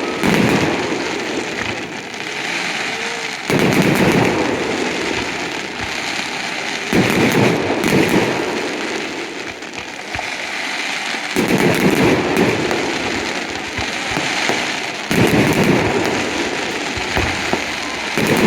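Fireworks display: a loud burst about every three and a half to four seconds, with dense crackling between the bursts.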